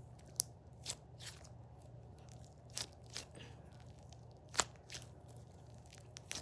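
A squishy NeeDoh stress toy being squeezed and handled for ASMR, giving irregular crisp crackles and clicks. The crackles come a few at a time, with a faint low hum beneath.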